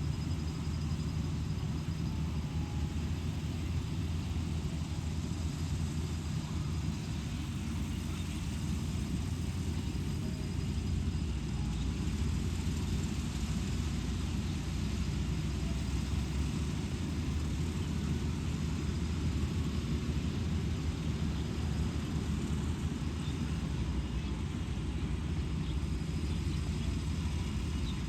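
Combine harvester running steadily while harvesting rice: a continuous, even low engine rumble with machinery noise over it, unchanging throughout.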